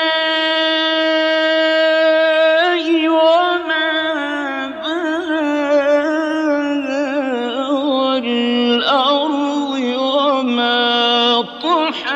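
Solo male voice chanting Quranic recitation in the ornate mujawwad style, holding one long steady note for about two and a half seconds and then running into long wavering melismatic ornaments, with short breaths about 5, 9 and 11 seconds in.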